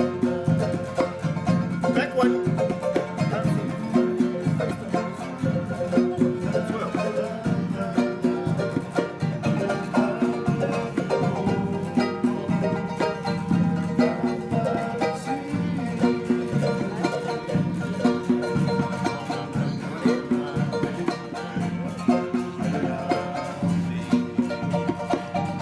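Live music with a steady beat: hand drums with plucked strings playing along.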